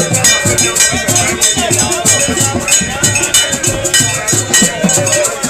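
Ekpe masquerade music: drums with metal bells and rattles playing a fast, steady rhythm, the bright jangle of the bells sitting over low drum strokes.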